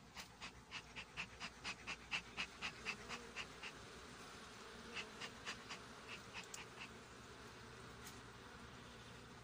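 Beekeeper's bellows smoker being pumped, puffing air and smoke out in quick, even puffs about four a second. It goes in two runs with a pause of about a second between them.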